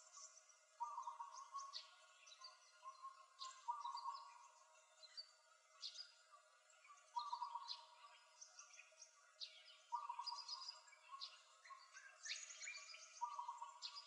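Several forest birds calling at once: a short low whistled note repeated every couple of seconds, with many quick, high, falling chirps and trills over it.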